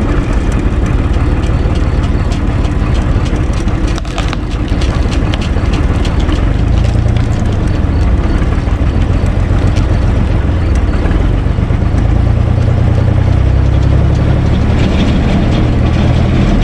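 UTB Universal 445 DT tractor's diesel engine running steadily close by. Its low sound grows heavier about six and a half seconds in and again from about twelve seconds.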